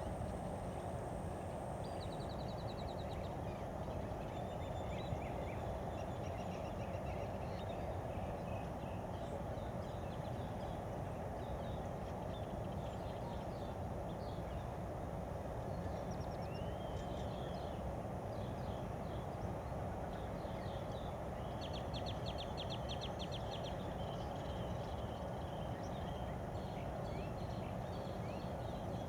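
Several wild birds calling and chipping, with short trills about two seconds in and again around twenty-two seconds, over a steady background rumble.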